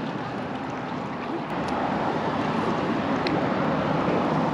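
Steady rushing noise of wind on the microphone and water moving around a kayak being paddled, with a few faint ticks.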